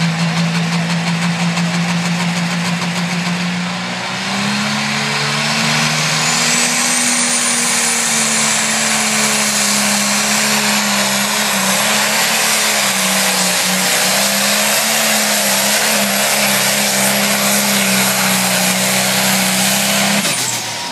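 Turbocharged diesel pulling tractor going to full power about four seconds in, under load pulling a sled. Its turbocharger whine climbs steeply to a high, steady pitch and holds for about sixteen seconds, then the engine note cuts off sharply near the end.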